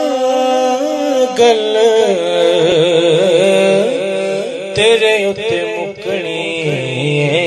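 A man's solo voice singing a Punjabi naat into a microphone: a long held note, then wavering, ornamented melodic runs on drawn-out vowels.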